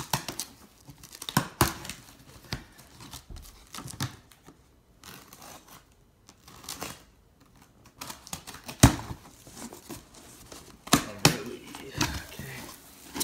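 A cardboard shipping box being opened by hand: packing tape torn and box flaps pulled and folded back, with scattered rustling, scraping and sharp cardboard cracks, the loudest about nine seconds in.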